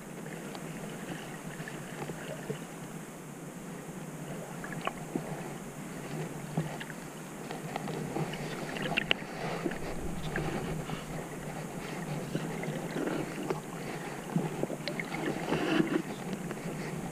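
Underwater sound picked up by a diver's camera: a steady rush of moving water with many scattered small clicks and crackles, louder in the second half.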